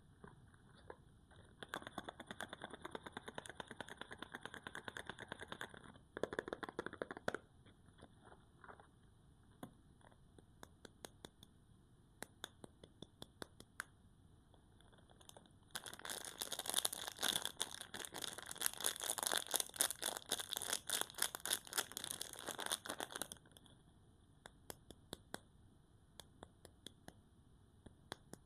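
Crinkling and tearing of soap packaging being opened by hand. It comes in two spells of dense crackling: one a couple of seconds in, and a louder, denser one a little past the middle, with scattered small clicks in between.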